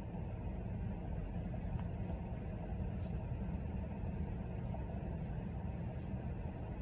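Steady low rumbling background noise with no clear events.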